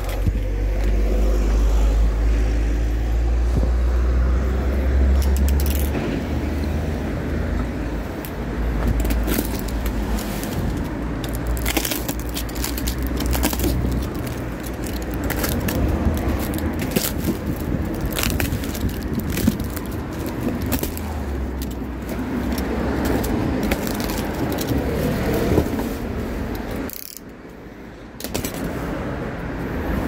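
A motor vehicle running, with a steady noise haze and a deep low rumble, and scattered clicks and light rattles over it. The sound drops briefly for about a second near the end.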